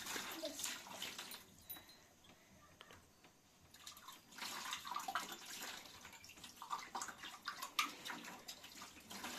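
Water poured from a plastic jug into a plastic basin, with hands splashing and rubbing in the water; it eases off for a couple of seconds in the middle, then picks up again.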